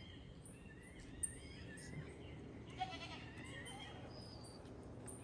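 Faint animal calls: many short, high chirps and whistled glides, with one longer, fuller call about three seconds in.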